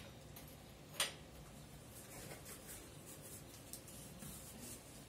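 Cardboard box being opened and its packing handled: a sharp knock about a second in, then faint scrapes and rustles of cardboard flaps and plastic wrap.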